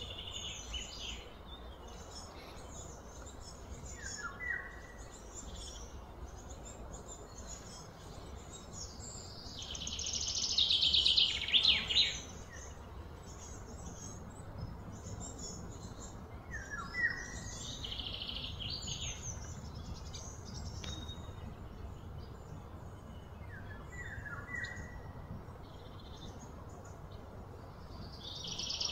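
Birds chirping and calling, with a loud, rapidly pulsing trill about ten seconds in and again at the very end, and a short falling call heard three times, over a steady low outdoor rumble.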